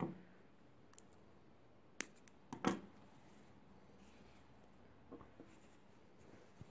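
Scissors snipping off yarn tails: a few quiet, sharp clicks about a second apart, the loudest just under three seconds in and two fainter ones a little past five seconds.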